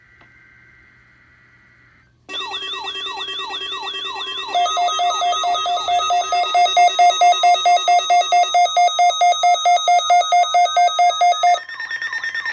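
Weather alert radios' alarms going off together: a faint steady electronic tone, then about two seconds in a loud layered alarm of fast repeating falling siren-like sweeps over steady tones. A couple of seconds later rapid pulsed beeps, about three or four a second, join in. The alarms cut off abruptly near the end, leaving a quieter rising tone.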